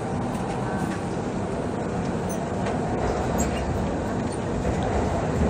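MTR C-train metro car heard from inside as it pulls out of the station into the tunnel: steady running rumble of the train, with the low rumble growing louder near the end.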